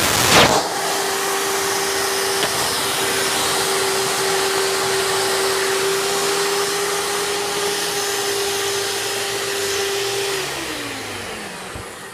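Hoover vacuum cleaner running with a steady motor whine, switched off about ten seconds in and winding down, its pitch falling. There is a brief loud bump just after the start.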